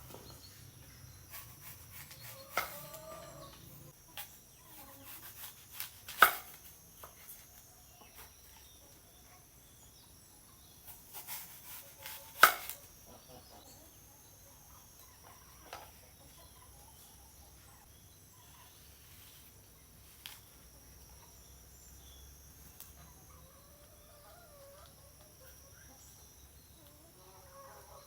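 A few sharp knocks, the loudest two about six seconds apart, with faint wavering hen calls between them.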